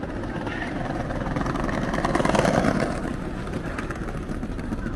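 A road vehicle passing close by on a city street: its noise builds to a peak about halfway through, then fades.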